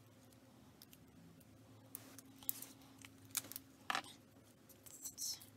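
A few short clicks and rustles of small objects being handled, over a faint steady hum.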